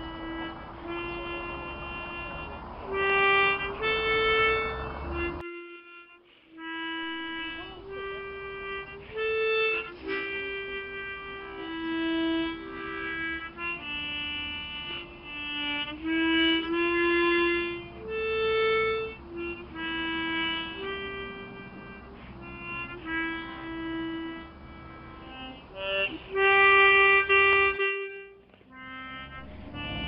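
Solo harmonica improvising a slow melody of held notes, breaking off briefly twice.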